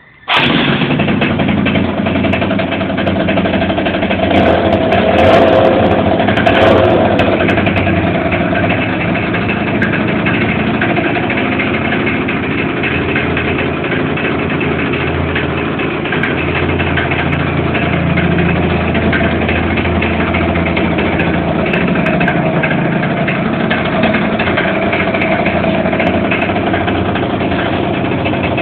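Yamaha Aerox scooter's two-stroke engine with a Stage6 Pro Replica exhaust, running steadily near idle. It comes in abruptly at the start and rises a little for a few seconds before settling.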